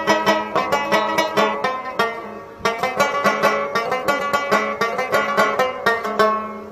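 Background music: a plucked string instrument picking quick notes over a steady low drone, with a short break about two and a half seconds in.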